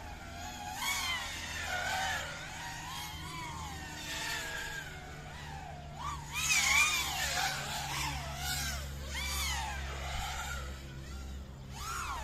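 FPV drone's brushless motors whining, the pitch swooping up and down again and again as the throttle is worked, loudest about six seconds in.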